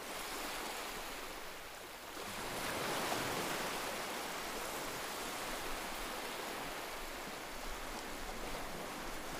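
Steady rushing noise with no pitch or rhythm, swelling slightly about two and a half seconds in.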